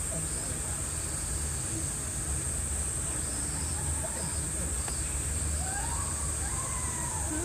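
Steady, high-pitched drone of summer cicadas over a low outdoor rumble, with people's voices coming in over the last second or two.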